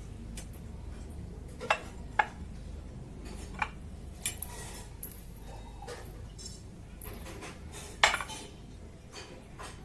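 Dishes and glassware clinking as they are handled and set down, a string of separate sharp clinks, with the loudest about eight seconds in.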